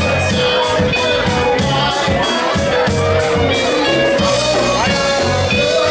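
Live band playing a rock song: electric guitars and drums, with a steady cymbal beat and held guitar notes.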